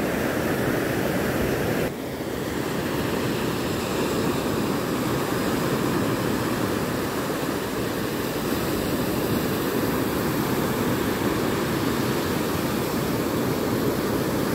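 Rough surf breaking on a beach: a steady rush of water that dips slightly about two seconds in.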